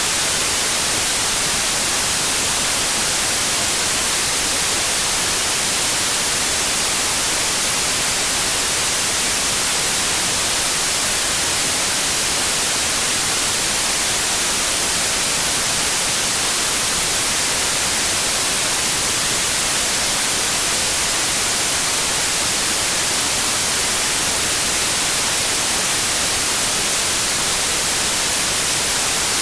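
Steady, unbroken white noise from a noise generator: an even hiss, strongest in the high frequencies, with no changes or events.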